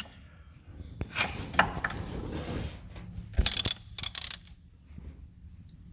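Metal hand tools clinking and clattering while a ratchet and socket are brought in to work on the backhoe. Scattered knocks are followed by a loud burst of sharp metal clanks about three and a half seconds in.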